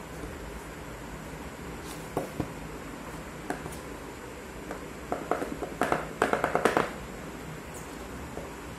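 A cardboard earphone box is handled by hand: a few light taps and knocks, then a burst of rapid clicking and crackling of the packaging between about five and seven seconds in, over a steady hiss.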